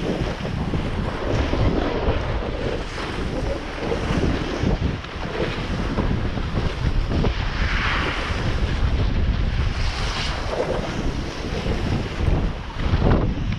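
Wind buffeting the microphone of a camera carried by a skier moving downhill, with the hiss of skis sliding on packed snow, louder for a moment about eight seconds in.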